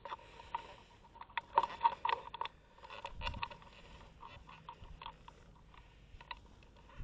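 Scattered sharp clicks and rustling, with a denser cluster of louder clicks from about a second and a half to two and a half seconds in.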